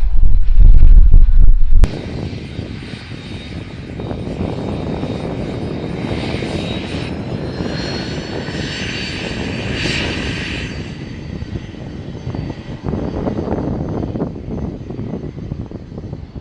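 Wind buffeting the microphone, cut off suddenly near the two-second mark; then an airplane's engine running past, with a faint high whine that swells and rises slightly in pitch through the middle before easing off.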